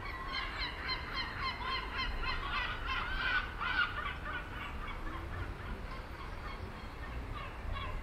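Many birds calling at once: a dense chatter of short, overlapping calls, loudest a few seconds in.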